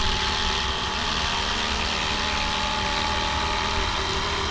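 Rotor blades and electric motor of a FlyWing Huey UH1 V3 GPS RC helicopter running steadily with a whine as it comes down to land under automatic return-to-home.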